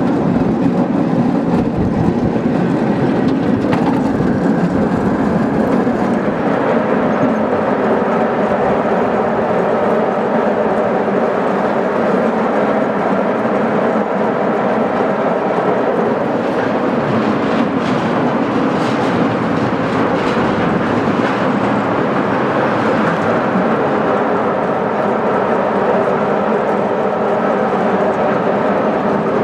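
Quarter-scale miniature railroad train rolling along the track, heard from aboard an open passenger car: a steady running rumble of wheels on rail.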